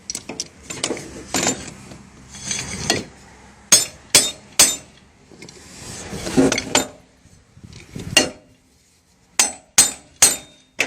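Hammer tapping a universal joint's yoke on a propeller shaft, sharp metal-on-metal strikes in two quick runs of three, to seat the new bearing cups so the joint turns freely.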